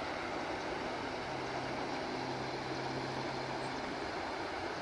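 Logan River, a mountain stream, rushing steadily. A faint low hum sits underneath it for a few seconds in the middle.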